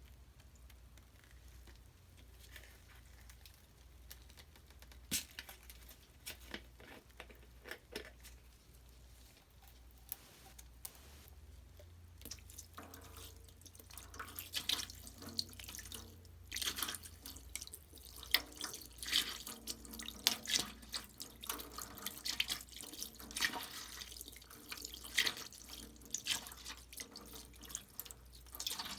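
Water dripping and splashing in a basin, with fine crackling. The crackles are sparse at first and become much denser from about halfway through.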